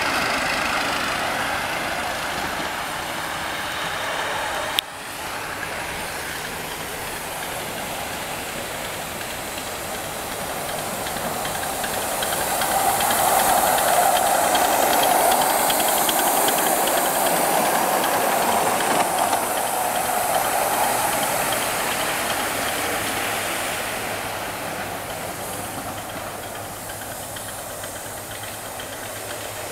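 Ride-on miniature live-steam locomotive running, its exhaust chuffing and steam hissing, growing loud as the engine passes close about halfway through and then fading away. A sharp click about five seconds in.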